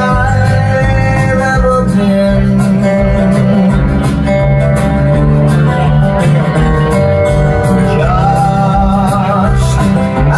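Live country-rock band playing: a man singing over a strummed acoustic guitar, with drums behind.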